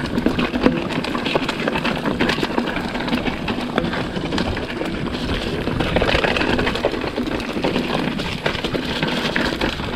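Mountain bike rolling over a rough, wet dirt-and-grass singletrack: tyre noise with the bike's chain and frame rattling, many small clicks and knocks from the bumps.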